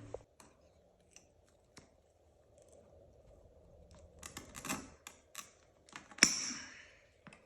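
Small hand tools being handled: scattered sharp clicks and light scraping, with a cluster of clicks about four seconds in and a louder click about six seconds in, followed by a short hiss.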